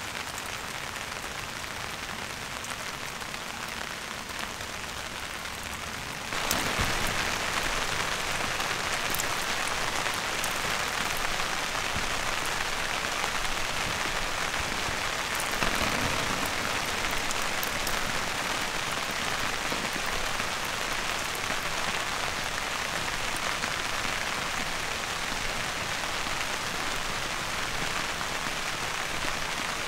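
Steady rain falling on a tarp and the surrounding grass, growing louder about six seconds in.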